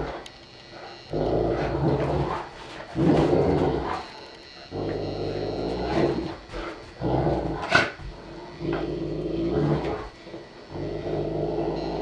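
Saint Bernards growling in play as they tug at a toy between their jaws, in low growling bouts of a second or two with short pauses between. There is one short sharp sound just before the eight-second mark.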